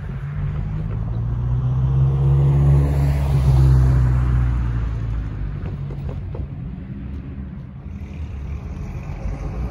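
Road traffic crossing close by: a passing vehicle's engine swells to its loudest two to four seconds in and then fades, and other cars follow with a steady hum.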